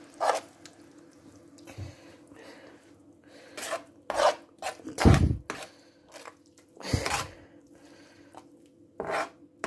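A spoon stirring frying onions and tomatoes in a frying pan, scraping and knocking against the pan in scattered strokes. The loudest is a heavier knock about five seconds in, with a few sharper clinks near seven and nine seconds.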